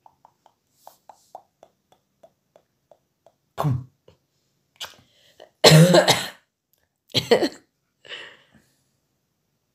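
A man clearing his throat and coughing: a run of faint small clicks, then four rough bursts, the loudest and longest about six seconds in.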